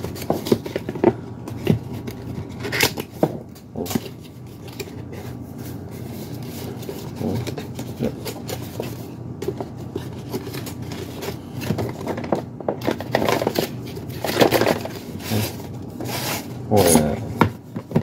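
Cardboard boxes being handled by hand: a paperboard box sliding and rubbing against its card sleeve, with irregular scrapes, rustles and light knocks as boxes are turned over and set down on a desk. Some of the handling is louder about two-thirds of the way through and near the end.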